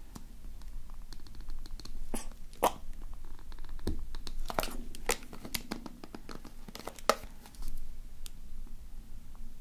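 Clear PVA slime glue squeezed from a plastic bottle in a thin stream into a plastic tub: scattered soft clicks and crackles, about eight of them spread irregularly through the middle of the stretch, over a low steady background.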